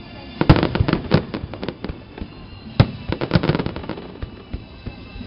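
Aerial firework shells bursting: a rapid flurry of bangs and crackles in the first two seconds, another cluster around the middle, then scattered single bangs.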